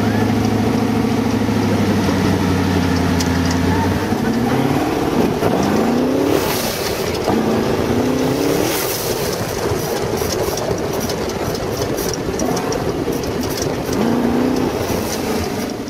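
Twin-turbo LS V8 of a sand rail under way: a steady, even drone for the first four seconds or so, then revs rising and falling again and again, over a constant rushing noise.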